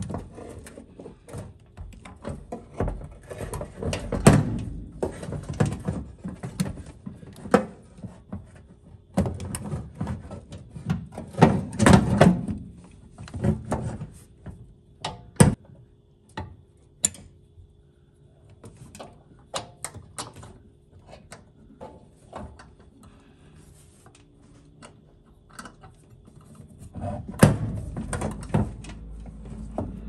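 Metal clanks, clicks and scraping as a car's pedal assembly, its cables and a pair of pliers are worked against the bare steel floor pan. The knocks are irregular, with a few loud ones, and there is a quieter spell of scattered clicks in the middle.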